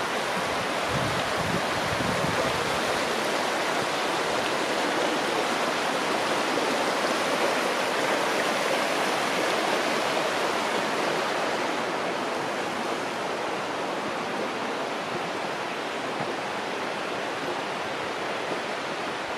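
The Little Firehole River rushing over rocks: a steady hiss of fast-running water that eases slightly about two-thirds of the way through.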